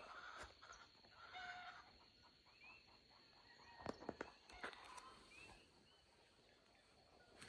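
Quiet morning forest ambience: faint, scattered bird chirps over a steady faint high tone, with a few sharp clicks about four seconds in.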